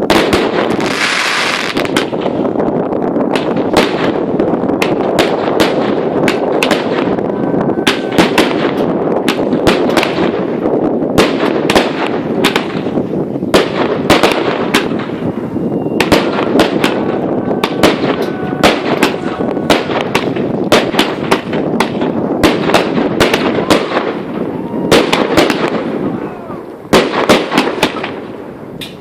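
Fireworks display: aerial shells going off in rapid succession, several sharp reports a second over a continuous crackle, thinning briefly near the end.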